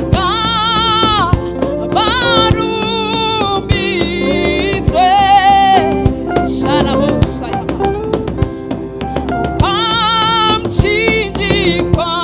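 Church praise and worship music: a singer with a wavering, vibrato voice over a band with drum kit and guitar. The singing stops for a few seconds in the middle while the band plays on, then comes back near the end.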